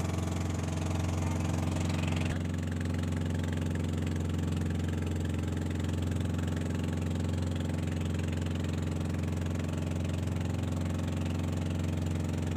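Engine of a motorized outrigger boat running steadily, heard from on board: a constant low hum with an even pitch.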